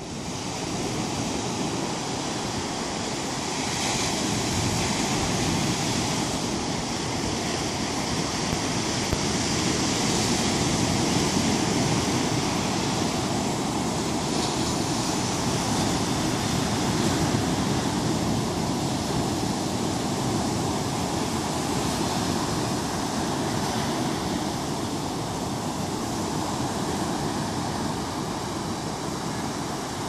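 Sea surf breaking and washing up a sandy beach: a steady rush that slowly swells and eases.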